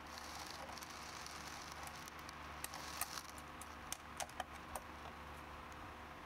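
Faint, scattered light clicks and taps of small metal parts as aluminum channel is handled and its screws are fastened with a hex driver, the clicks coming more often in the second half.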